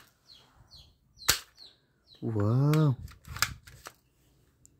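Plastic toy pump-action shotgun clicking as it is worked in the hands: one sharp click about a second in, with a few softer plastic clicks and rattles around it.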